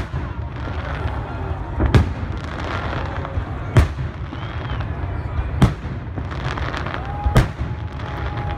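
Aerial firework shells bursting overhead, with a sharp bang about every two seconds over steady background noise.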